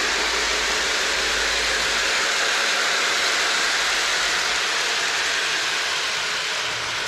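Lionel model train running on shelf-mounted track: a steady rushing noise of wheels and motor, with a low hum that fades out a little past halfway.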